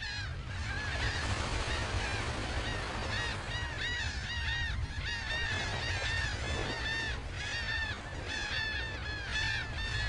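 Many birds calling at once: short, nasal, arched notes, several a second and overlapping, over a steady low rumble.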